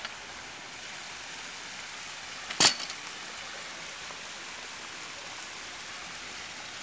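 One sharp wet slap about two and a half seconds in, followed by a few small knocks: a big tambaqui flapping on a wet fish-landing mat. A steady hiss runs underneath.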